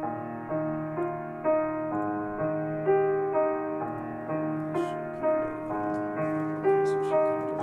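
Solo piano playing a slow, repeating figure of sustained notes, a new note or chord struck about every half second, with no singing.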